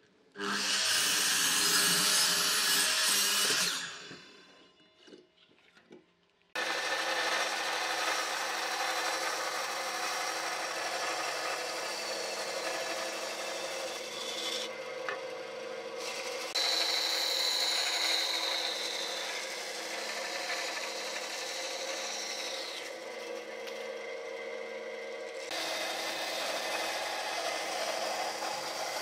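A Makita sliding miter saw cuts through a thick board for about three and a half seconds, then its sound dies away. From about six seconds in, a band saw runs steadily as its blade cuts a thick wooden block along a curved line.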